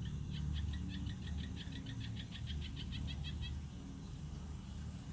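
A rapid run of short, high chirps from an animal, quickening to about six or seven a second and stopping about three and a half seconds in, over a steady low rumble.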